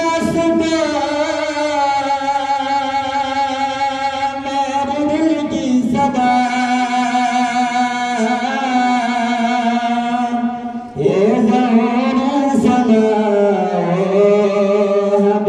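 Naat sung unaccompanied by a solo voice, holding long, wavering, ornamented notes, with a short break for breath near the end before the line resumes.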